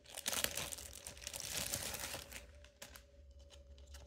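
Clear plastic wrapping crinkling as it is handled for about the first two seconds, then dying down to a few light clicks.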